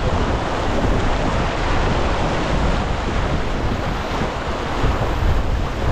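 Steady wind buffeting the microphone together with water rushing along the hull of a Farr 280 racing sailboat moving at about eight knots.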